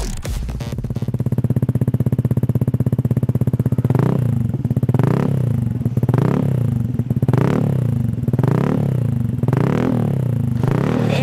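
Motorcycle engine through an aftermarket Shijiro racing exhaust, idling with an even pulse for a few seconds. It is then revved in quick throttle blips, about seven times, each rising in pitch and dropping back.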